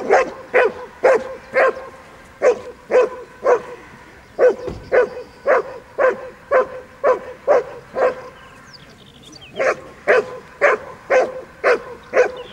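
German shepherd barking repeatedly at the helper during protection training, about two barks a second, with a break of a second or so about two-thirds of the way through.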